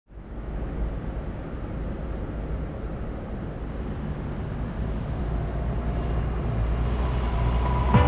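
A deep, steady rumble with a hiss above it, slowly growing louder; faint musical tones come in near the end.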